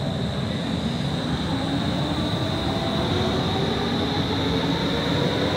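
Stockholm metro C30 train pulling away from an underground platform, its running sound growing steadily louder as it gathers speed, with a motor whine that begins to rise in pitch near the end.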